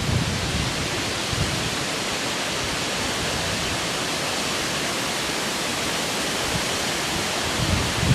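Steady rushing noise of derecho-strength wind blowing through trees, holding an even level.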